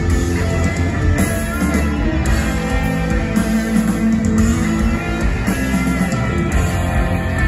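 Live rock band playing loud, with electric guitars, bass and drums, heard from within the audience.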